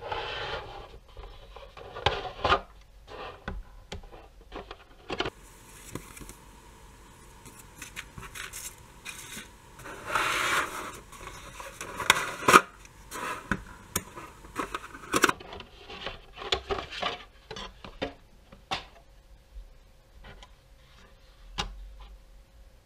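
Hands handling packaging: the Godox LED64 video light's plastic body and its white moulded tray scraping, rubbing and knocking as the light is worked out of the box, with a string of short clicks and a few sharper knocks.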